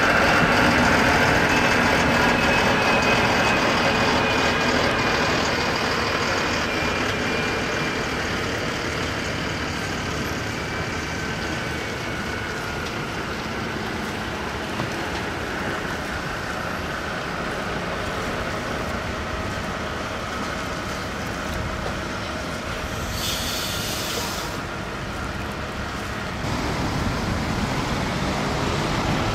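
Heavy-haul tractor unit and its long multi-axle trailer carrying an oversized tank rolling slowly past, the engine and tyre noise fading gradually as it moves away. There is a short hiss about 23 seconds in, and the sound grows louder again near the end.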